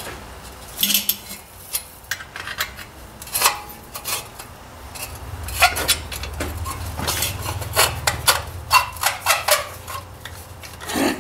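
Irregular metallic clinks, taps and scraping as hand tools work on the exhaust pipe and clamps of a Ford 800 tractor.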